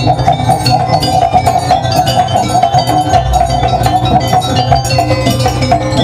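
Live Jaranan accompaniment music: fast drum strokes and clinking metal percussion under a held, wavering high melody line.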